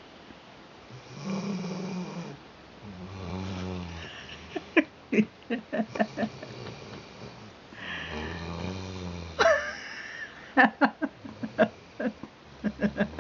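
A Rhodesian Ridgeback puppy snoring in its sleep. Several long, low, buzzing snores come a few seconds apart, with runs of short sharp snorts or clicks between them; these are the loudest sounds.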